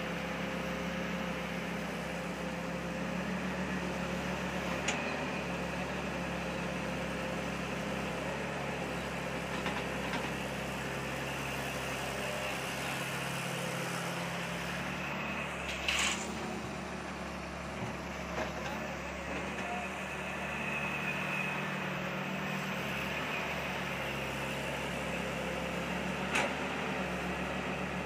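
Tata Hitachi hydraulic excavator's diesel engine running steadily while it digs and swings, with a few short knocks now and then.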